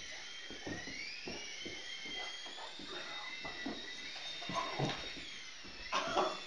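Small toy quadcopter's rotor motors whining, the pitch rising and falling as it is steered, with scattered light thumps underneath.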